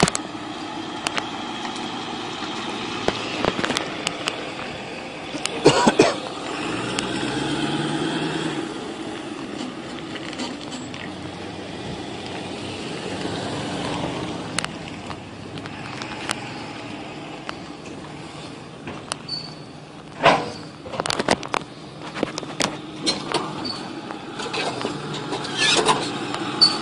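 Motor vehicle engine running, with sharp knocks about six seconds in and a run of further knocks and clicks toward the end.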